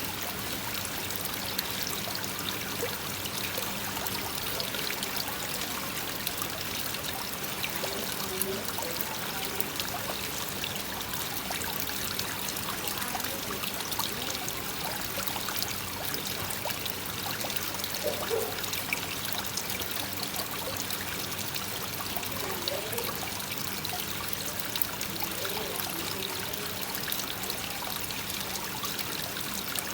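Koi pond waterfall pouring and trickling steadily into the pond, with rain falling on the water.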